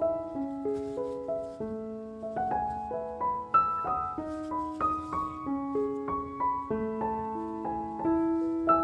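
Background piano music: a slow, gentle melody of single struck notes over sustained lower notes.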